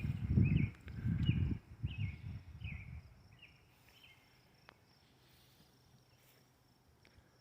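A small bird chirping over and over, short gliding calls a little under two a second, that fade out about four seconds in. In the first three seconds a loud low rumble sits under the calls.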